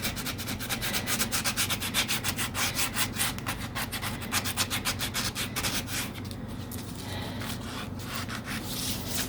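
Coarse-grit sandpaper rubbed by hand over wood in quick back-and-forth strokes, several a second. The strokes become fewer and quieter after about six seconds.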